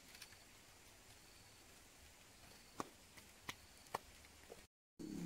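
Quiet outdoor background broken by a few sharp knocks and clicks, three in the second half, from wooden sticks and lashing cord being handled. After a brief dropout near the end, a steady low hum begins.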